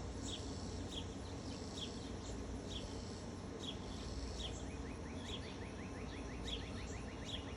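Birds calling outdoors: a short high chirp repeated about once a second, joined near the end by a rapid ticking trill, over a steady low background rumble.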